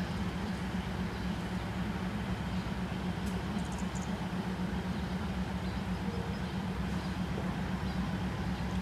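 Diesel locomotive of a stationary passenger train idling at the platform: a steady, even low rumble. A few faint ticks come about three seconds in.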